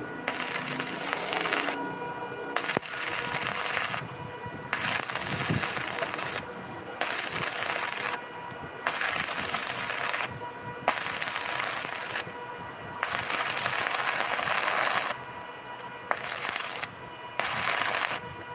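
Electric arc welding: the arc crackling and sizzling in bursts of one to two seconds, stopping and restarting about eight times.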